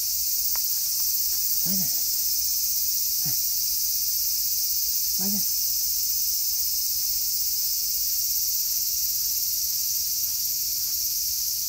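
Steady high-pitched chorus of insects. A few short, soft voice sounds come in the first half.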